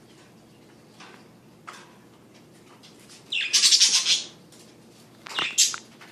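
Pet budgerigars (parakeets) chirping: a few soft chirps, then two loud calls, the first lasting about a second around the middle and a shorter one near the end.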